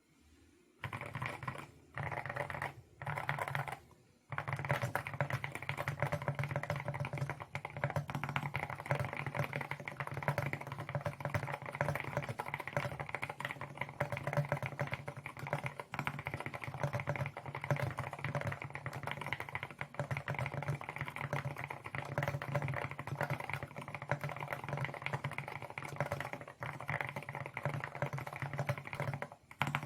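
Typing on an Akko MU01 wooden-cased mechanical keyboard with Akko Rosewood switches, which have a low-pitched keystroke sound. Three short bursts of keystrokes come first, then continuous fast typing from about four seconds in.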